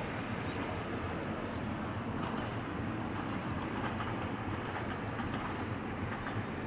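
Low steady rumble of an Ohmi Railway electric train approaching along the track while it is still some way off.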